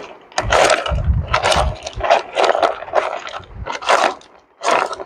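A hand tool scraping gravel and rock out of a bedrock crevice: a quick series of rough scrapes, about two or three a second, with a few dull knocks.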